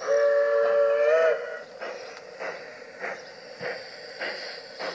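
G-scale model steam locomotive blowing a two-note chime whistle for just over a second, its pitch bending up as it cuts off, then chuffing slowly and evenly, about one and a half chuffs a second.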